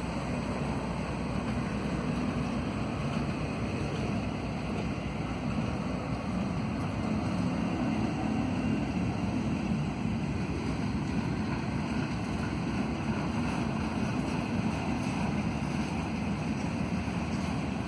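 Steady rolling rumble of a Canadian National rail train's flatcars, loaded with long welded rail, passing on the track.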